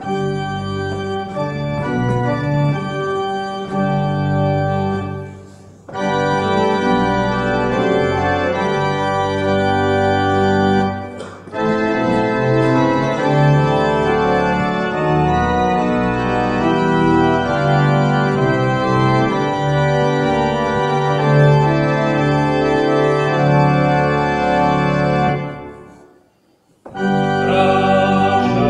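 Church organ playing sustained full chords from the console, in phrases that break off briefly about five, eleven and twenty-six seconds in.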